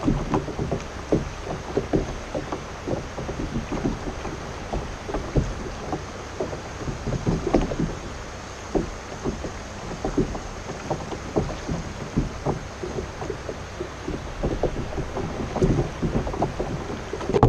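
Water lapping and splashing against a kayak hull, with many small irregular knocks and sloshes.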